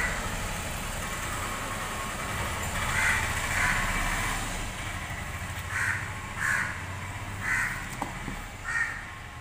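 A bird calling repeatedly: short calls, mostly in pairs, about six in all, over a steady low background rumble.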